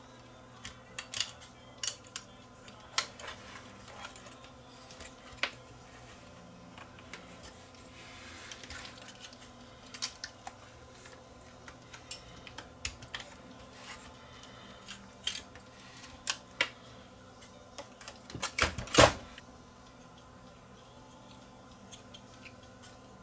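Scattered clicks and light knocks of small tools and parts being handled while an electronics unit is taken apart on a workbench, with a louder clatter about nineteen seconds in. A faint steady hum runs underneath.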